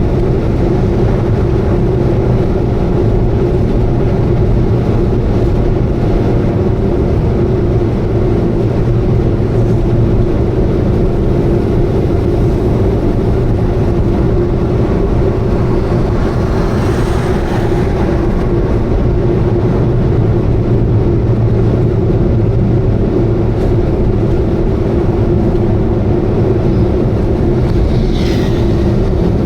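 Subaru Vivio KK3 running steadily at expressway speed, a constant engine and road drone with an abnormal noise that the owner suspects is an exhaust leak. A brief rushing swell comes about halfway through, and a short falling squeak near the end.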